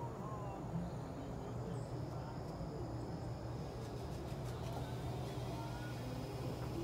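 A steady low hum from some machine or electrical source, with a few faint bird chirps.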